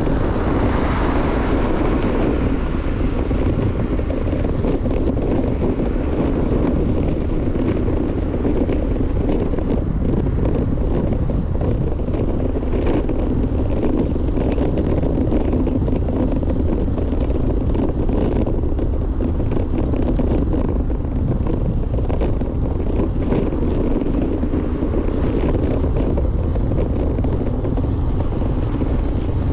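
Wind buffeting the microphone of a bike-mounted action camera while riding: a steady low rushing noise.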